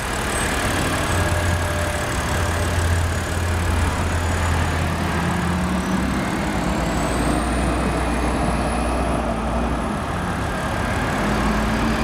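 2007 BMW 328i's 3.0-litre inline-six idling steadily, heard from over the open engine bay.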